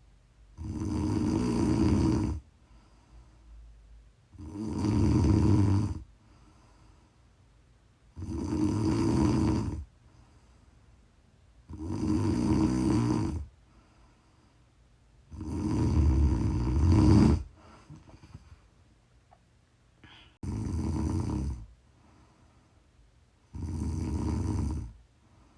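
A sleeping woman snoring: seven long snores, each about one and a half to two seconds, coming about every three and a half to four seconds, with quiet between them.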